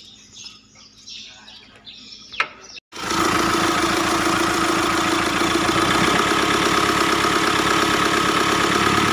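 Mitsubishi Triton's 4D56 four-cylinder turbo-diesel idling steadily, starting about three seconds in after faint handling clicks. The timing belt tensioner has just been replaced, and the earlier rough growling noise is gone.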